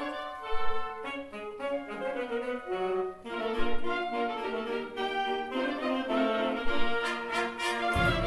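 Concert wind band playing an arrangement live. Clarinets and saxophones carry a melodic line, and the fuller band comes in about three seconds in.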